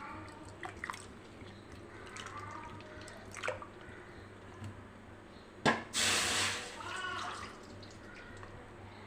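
Tamarind water being poured into a kadai, splashing and trickling. There are a few clinks of metal vessels, and a louder pouring rush about six seconds in.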